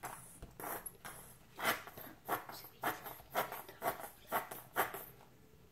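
A small octopus-shaped plastic squeeze dropper being squeezed and released in pink candy liquid. It makes a run of about seven short squirts, roughly two a second, starting about one and a half seconds in.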